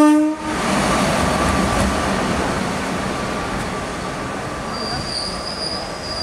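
Renfe class 269 electric locomotive passing: its single-tone horn cuts off about half a second in, then the running noise of the locomotive on the rails slowly fades as it draws away. A faint high wheel squeal comes in near the end.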